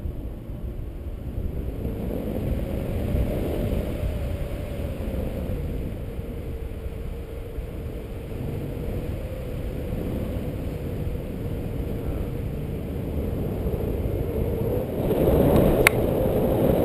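Wind rushing over an action camera's microphone in flight under a tandem paraglider, a steady low rumble with a faint steady tone underneath. It grows louder near the end, with a single sharp click.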